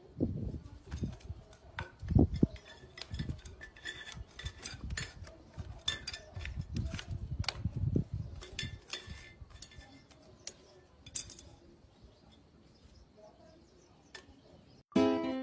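Irregular light clinks and taps with soft low thumps, thinning out after about ten seconds.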